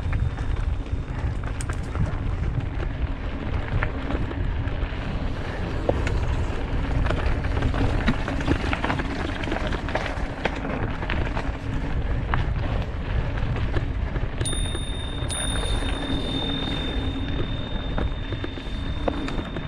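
Mountain bike descending a rocky dirt singletrack: tyres rumbling and crunching over loose rock and dirt, scattered clicks and rattles from the bike, and wind buffeting the microphone.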